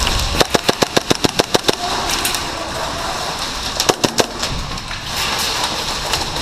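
KWA MP7 gas blowback airsoft submachine gun firing a rapid burst of about a dozen shots, roughly eight a second, then two more single shots about four seconds in. Between the shots there is a steady rushing noise.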